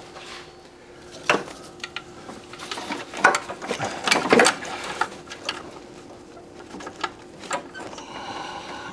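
Scattered clicks and clinks of metal hand tools being worked onto a bolt deep in a car's engine bay, loudest in a cluster about three to four and a half seconds in, over a faint steady hum.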